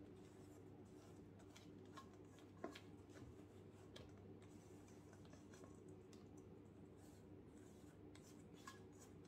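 Faint scrapes and soft clicks of a silicone spatula against a plastic bowl as whipped cream is scraped out, over a low steady hum.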